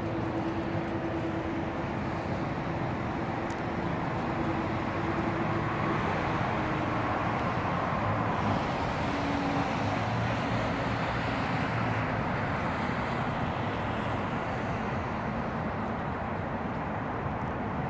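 Steady outdoor traffic noise with tyre hiss on rain-wet roads, swelling as a car passes on the wet road below about halfway through. A steady hum sounds in the first few seconds.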